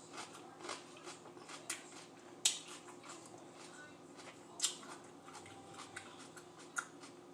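Crunching and chewing of raw mini sweet peppers, a scatter of sharp crisp crackles, the loudest about two and a half and four and a half seconds in.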